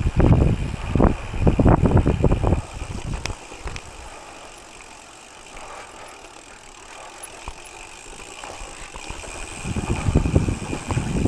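OPEN U.P. gravel bike rolling over a rutted, rocky dirt track: tyre rumble and jolts from the bumps, heavy for the first two and a half seconds, much quieter in the middle, and rough again near the end.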